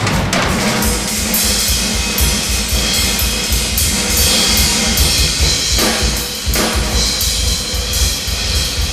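Drum kit played fast and loud: a dense stream of bass drum and snare strokes under a constant wash of cymbals.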